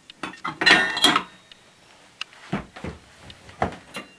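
Metal turbogenerator plate being handled and lifted off the stator: a scraping clatter with a brief metallic ring about a second in, then two dull knocks.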